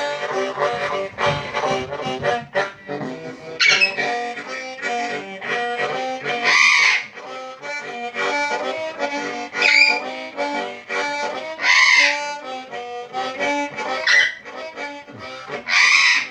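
Bass harp harmonica playing a slow blues line, while a red-sided eclectus parrot calls along over it in six short, loud squawks spaced two to three seconds apart.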